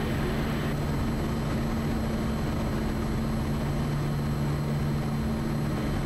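Steady drone of a Quest Kodiak 100's PT6A turboprop engine and propeller in flight, with an unchanging low hum under the rush.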